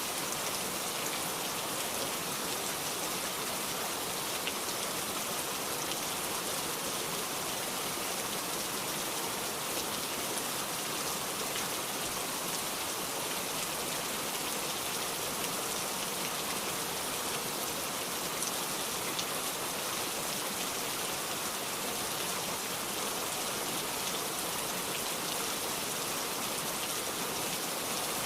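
Steady heavy downpour of rain, an even hiss with fine drop patter.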